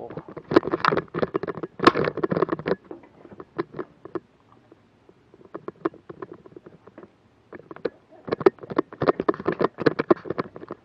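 Clusters of rapid clicks and scuffs from an action camera being carried and moved about: handling noise, dense at the start and again near the end, sparse in between.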